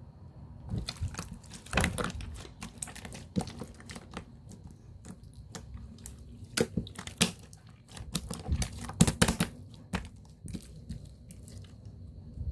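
Slime being squeezed and worked by hand: a run of sticky clicks, crackles and small pops, coming in louder clusters and stopping shortly before the end.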